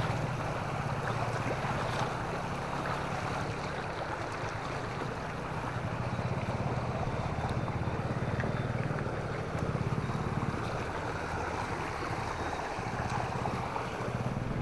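Motor scooter engine idling steadily, a low even hum under a steady rushing hiss.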